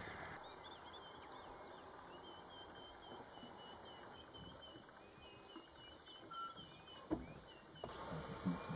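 Faint, rapid high-pitched chirping, many short notes in a row, from an animal, with a single sharp knock about seven seconds in.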